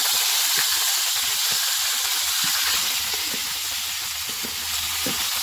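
Marinated liver slices sizzling in hot butter and oil in a frying pan, just after being tipped in: a steady frying hiss scattered with small crackling pops.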